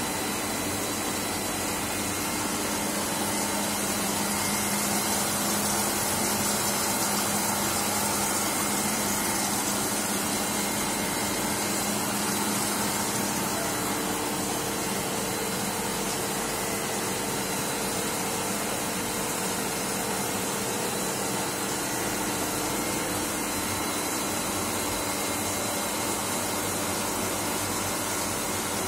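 CNC wire-cut EDM machine running: a steady hiss with a hum of several steady tones beneath it. About halfway through, the lowest tone drops out and a slightly higher one takes over for a while.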